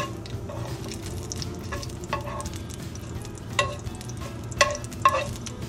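Whole spices (panch phoron, bay leaves, dried red chilies) sizzle in hot oil in a nonstick kadai, the tempering stage of a dal, while a steel spoon stirs them. The spoon scrapes and clinks against the pan, with a few sharper ringing clinks in the last two seconds.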